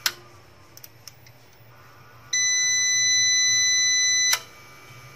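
UPS/inverter's built-in buzzer giving one steady high beep for about two seconds, cut off by a sharp click as the unit switches off. Another sharp click comes at the start, over a low steady hum.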